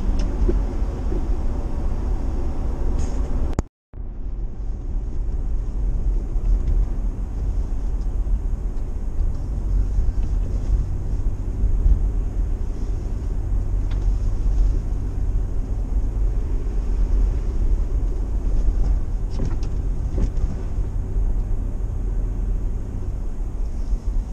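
Car driving on the road: a steady low rumble of engine and road noise. It cuts out for a moment about four seconds in, then carries on.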